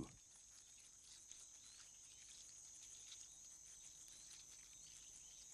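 Faint natural background: a steady high insect trill with a few faint scattered chirps and ticks.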